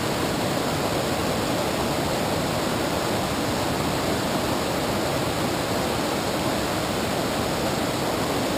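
A river's current rushing steadily.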